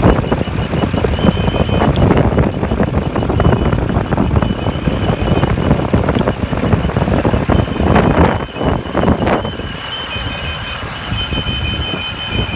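Engine running with a steady high-pitched whistle over its noise. The engine noise swells briefly about two-thirds of the way in, then drops, while the whistle carries on.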